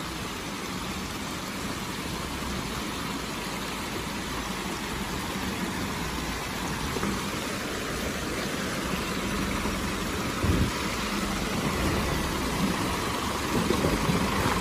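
Mahindra Bolero pickup's diesel engine labouring slowly up a rocky track, growing louder as it comes closer, with water running over the stones. A single thump about ten seconds in.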